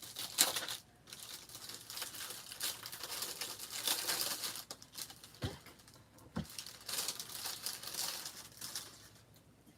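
Plastic wrapping and bubble wrap being crinkled and pulled off a new planner, in irregular bursts of crackling with a couple of soft thumps about halfway through.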